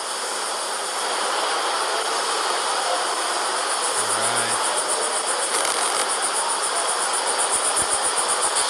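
A steady hiss of outdoor ambience with insects chirping; from about halfway in, a fast, even high pulse of insect calls runs through it. A few low thumps come near the end.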